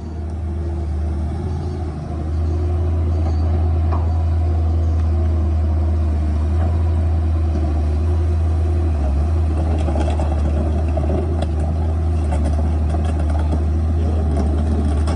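Excavator's diesel engine running steadily, rising in level about two seconds in and holding there, with scattered light clicks in the second half.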